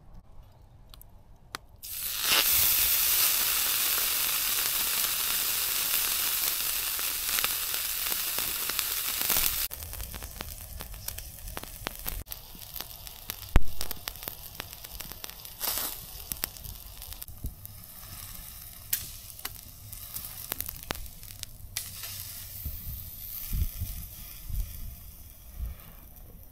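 Sirloin steak sizzling on the hot stainless grill plate of a Firebox wood stove: a loud, even sizzle starts about two seconds in and drops off abruptly a few seconds later. After that comes a quieter sizzle with the wood fire crackling, scattered pops and one sharp snap about halfway through.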